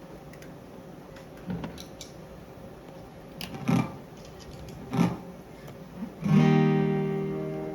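Guitar picks a few soft notes, then strikes a chord about six seconds in that rings out and slowly fades: the opening of a song before the vocals come in.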